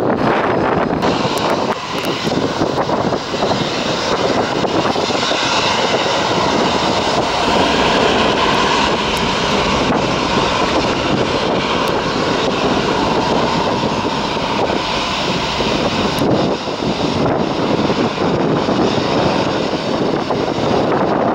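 Boeing 737 jet engines running at high power as the airliner speeds along a wet runway, a steady, dense jet noise that swells slightly partway through.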